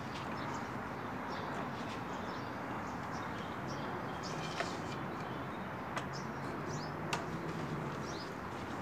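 Small birds chirping over a steady low outdoor hum, with three sharp clicks about halfway through and later, from the wooden folding table being handled.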